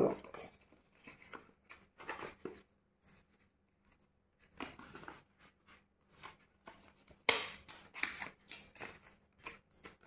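Small hand stapler driving a staple through stiff invitation card, among the rustling of the card being handled. There are short irregular clicks and rustles throughout, and the sharpest and loudest comes about seven seconds in.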